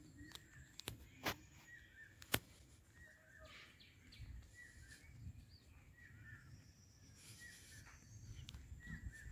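Small birds chirping, short calls repeating irregularly over faint outdoor ambience. A few sharp clicks come in the first couple of seconds, the loudest about two seconds in.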